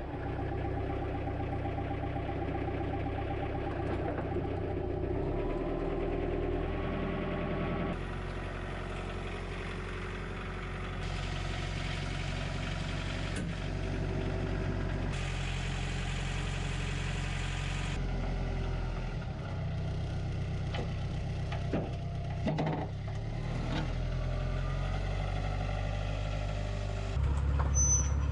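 A vehicle engine running and idling steadily, its sound changing abruptly several times, with a few brief knocks about three quarters of the way through.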